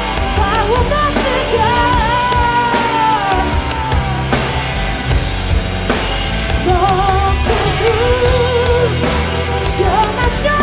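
Instrumental break of a rock ballad: a drum kit played with sticks, cymbals and snare keeping the beat, under a sustained lead melody that bends and wavers in pitch, over bass.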